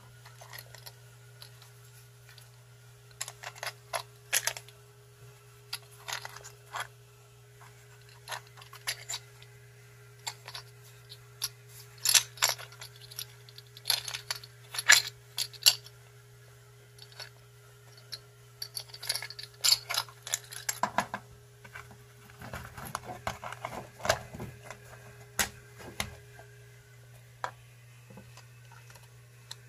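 Small carbide lathe inserts clinking against one another and against their metal tin, and steel tool bits being picked up and set down. The clinks come in scattered bursts of sharp metallic clicks over a steady low hum.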